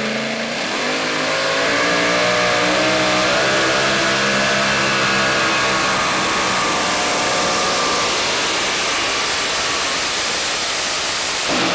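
Supercharged engine of a two-wheel-drive pulling truck at full throttle, dragging a weight-transfer sled. The revs climb about a second in and are then held high.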